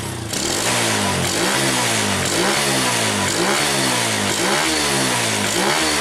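Yamaha Vega's four-stroke single-cylinder engine, fitted with a PE 28 carburettor and stock exhaust, revved in repeated throttle blips about once a second, each rising and falling in pitch, as the carburettor setting is tested.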